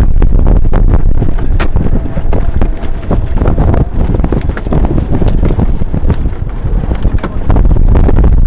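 Strong wind blasting the microphone aboard a sailboat racing in a 22-knot-plus blow: a loud, steady low rumble broken by frequent sharp knocks and slaps.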